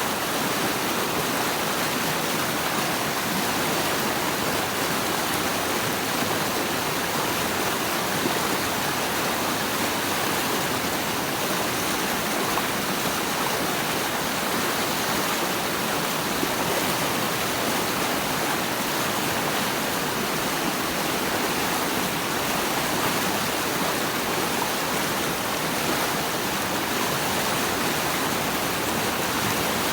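Steady rushing of flowing water, an even, unbroken wash with no change in level.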